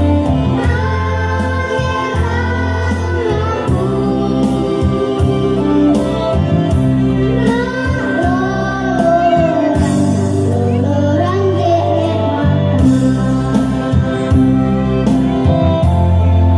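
Song with a singing voice over an accompaniment, with regular percussion strokes keeping a steady beat.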